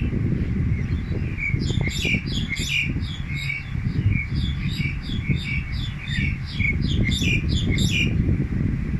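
A songbird calling in a fast series of repeated short notes, each sliding down in pitch, about three a second, for roughly six seconds before stopping. A steady low rumble runs underneath.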